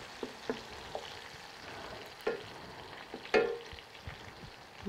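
Pork belly, pepper and chopped garlic frying in olive oil in a pan, a steady sizzle, with a utensil stirring and knocking against the pan a few times, the sharpest knocks about two and three and a half seconds in.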